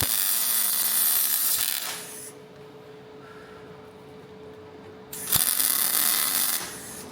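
MIG welder arc crackling and sizzling as spot welds go onto steel, in two runs: one of about two seconds, then a shorter one about five seconds in. Between them a steady low hum is left.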